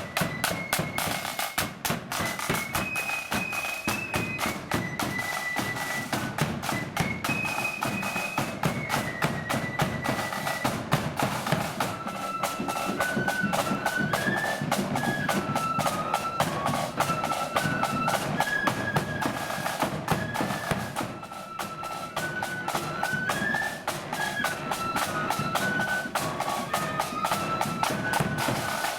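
Marching band playing a march: a high melody line of held notes over fast, continuous snare drumming and bass drum beats.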